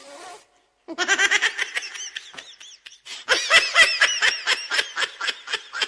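High-pitched laughter in rapid 'ha-ha' pulses, several a second, starting about a second in, breaking off briefly near the middle and then going on more strongly.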